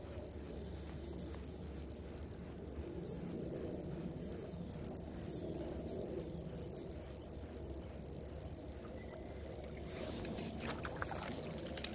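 Small spinning reel cranked steadily as a hooked trout is reeled in: a soft, even ticking over a low steady rumble. In the last couple of seconds, a few sharp splashes as the trout thrashes at the surface by the landing net.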